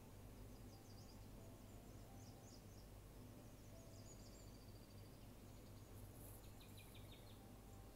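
Faint outdoor night ambience: a low steady hum with faint high chirping now and then, in the first half and again near the end.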